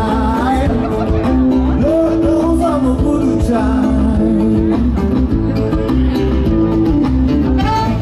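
Live band music from an outdoor festival stage: a steady bass beat under held notes and a melody line that slides up and down in pitch.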